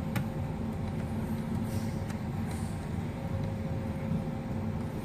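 Steady low background hum, with a few faint light clicks of a small screwdriver driving laptop hinge screws.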